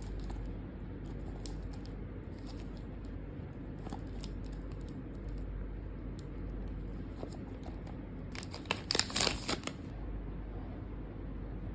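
Light rustling and clicking of packaging being handled, with a louder burst of crinkling about nine seconds in, over a steady low room hum.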